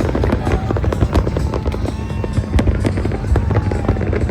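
Fireworks display going off: a rapid, irregular stream of bangs over a continuous low rumble.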